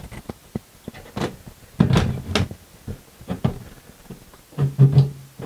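A fluorescent fixture's diffuser cover being pushed up into the ceiling troffer frame and snapped into its clips: a run of clicks and knocks, with a few louder thumps about two seconds in.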